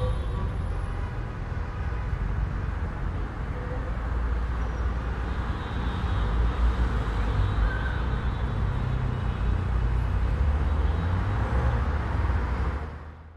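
City street ambience: steady traffic rumble with a deep low hum under a wash of street noise, fading out near the end.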